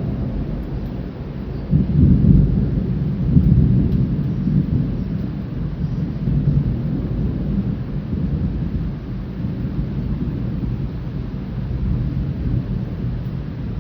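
Thunder rumbling, swelling sharply about two seconds in and again a second or so later, then rolling on more quietly, over steady rain.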